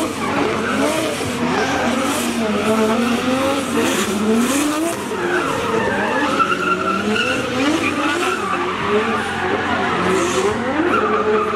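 Two drift cars sliding in tandem: engines revving up and down over and over, their pitch rising and falling, with the hiss and squeal of tyres sliding.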